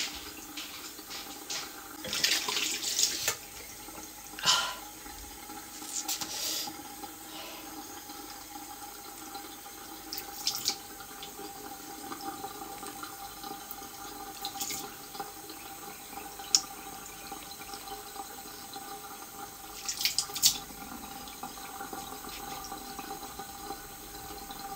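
Water tap running steadily into a sink, with a few brief louder splashes of water.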